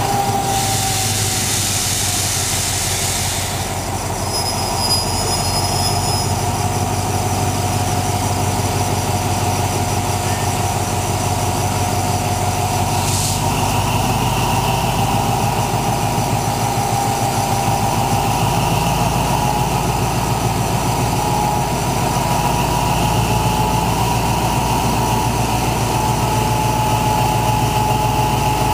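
Diesel locomotive idling, a steady engine run with a held whine over it. A loud hiss lasts about three seconds near the start, and a short one comes about 13 seconds in.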